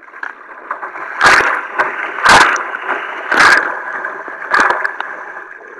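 Kayak paddle strokes splashing into the water, four loud splashes about a second apart, over the steady rush of water along the kayak.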